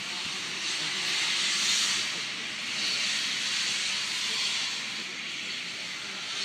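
Steam escaping from SR U class 2-6-0 steam locomotive No. 1638 as a strong hiss that swells and eases several times.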